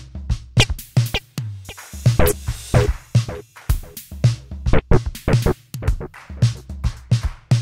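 Instrumental music: a drum-machine beat of sharp, evenly spaced hits over deep bass notes.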